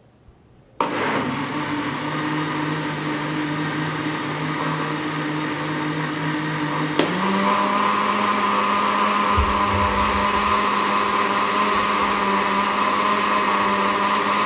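Electric mixer-grinder's blender jar beating a runny batter of flour, milk, eggs and oil: the motor starts abruptly just under a second in and runs steadily. About halfway through there is a click and the motor's hum steps up to a higher pitch, and it cuts off right at the end.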